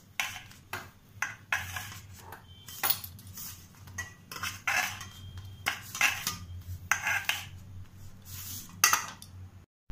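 Kitchen knife chopping boiled noodles in a stainless steel bowl: the blade knocks and scrapes on the bowl's metal bottom in an irregular string of clinks.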